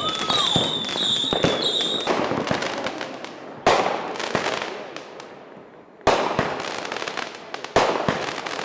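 Consumer fireworks going off: a high warbling whistle over crackling pops for the first two seconds, then three sharp bangs, about 3.5, 6 and 8 seconds in, each followed by crackling.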